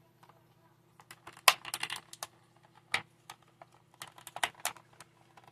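Stiff clear plastic packaging clicking and crackling as an action figure is pulled and twisted out of its tray, in irregular clusters of sharp clicks starting about a second in.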